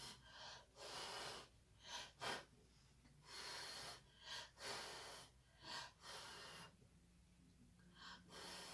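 A person blowing short puffs of breath onto wet poured acrylic paint, about ten puffs at uneven intervals, each under a second.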